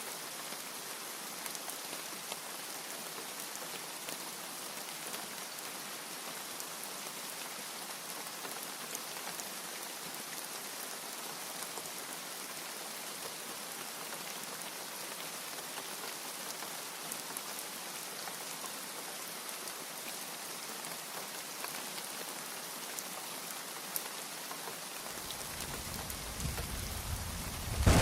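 Steady heavy rain, an even hiss with scattered drop ticks. Near the end a low thunder rumble starts to build.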